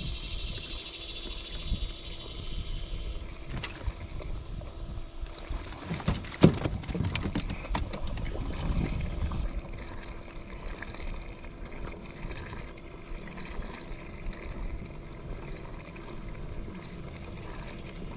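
Water trickling and lapping, with a cluster of sharp knocks and clicks about midway.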